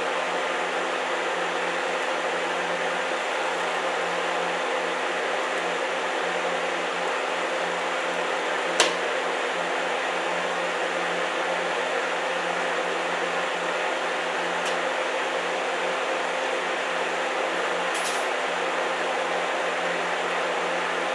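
Electric arc welding on a broken mower-deck pulley: a steady arc sizzle with a low hum under it and one sharp pop about nine seconds in. The popping and spitting come from rust and grease trapped in the joint.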